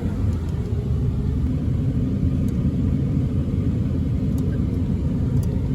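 Steady low rumble of a vehicle on the move, heard from inside the cab: engine and road noise with no change in pitch.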